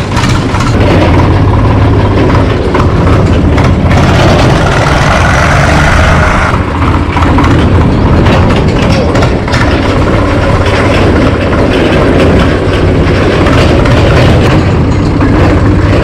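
Tractor diesel engine running steadily as the tractor drives along, heard close up from the seat, with a louder rattly noise for a couple of seconds a few seconds in.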